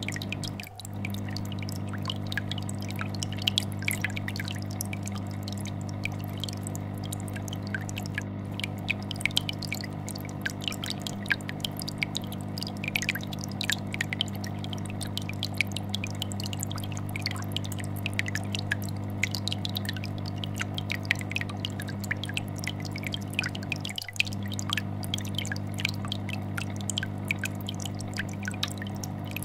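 Aquarium air bubbler bubbling in a stream of small pops and plinks over the steady low hum of a vibrating fish tank filter. The hum drops out briefly twice, about a second in and near the end.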